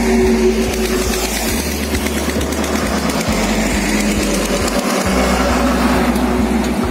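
Heavy highway traffic noise: vehicle engines running and passing close by, with a steady engine hum.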